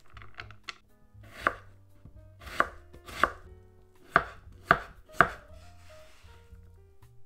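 Kitchen knife chopping an onion on a wooden cutting board: about six sharp knocks of the blade striking the board, unevenly spaced. Lighter clicks and rustling come from cut vegetable pieces being pushed together by hand.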